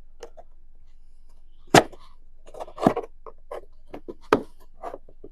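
Honda XL750 Transalp's plastic dash panel being prised off with a trim tool: a run of short, sharp plastic clicks and knocks as its clips let go, the loudest about two seconds in.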